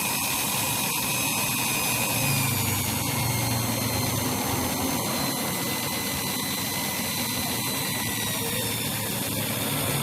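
Electric drill running steadily, spinning a sewing-machine motor armature while its commutator is cleaned; a high motor whine that sinks slightly in pitch over the seconds.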